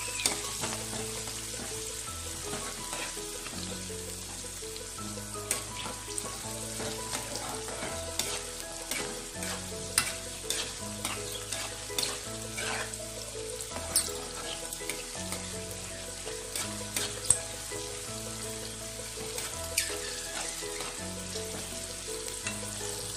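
Flour-coated corn kernels deep-frying in hot oil in a kadai: a steady sizzle, with a metal ladle clinking against the pan every second or so as it stirs. Quiet background music with a repeating note pattern plays underneath.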